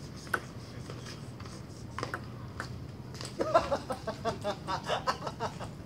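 A table tennis ball clicking sharply off the table and paddles a few times, then a man laughing for about two seconds in a quick rhythmic run.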